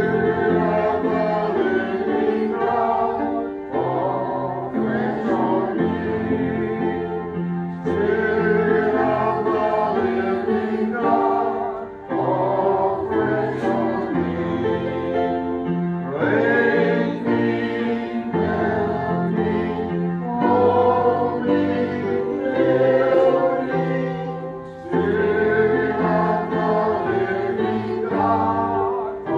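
A church hymn sung by a group of voices together over a steady instrumental accompaniment. It moves in sustained phrases of several seconds, with brief breaks between them.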